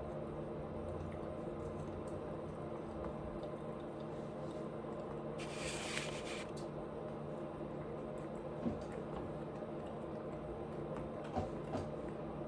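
Close-miked wet chewing and mouth sounds of a person eating, over a steady low hum. A hissing rustle of about a second falls near the middle, and a few sharp clicks come in the last third.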